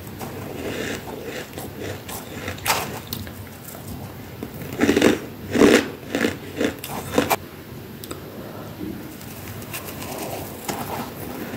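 Crunching and chewing mouthfuls of freezer frost, with a spoon scooping from a tub of frost. Crisp crackles run throughout, with a run of loud crunches about halfway through.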